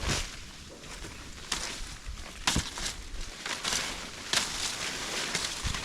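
Footsteps on a steep dirt mountain trail: irregular crunching steps, several in a row, with rustling between them.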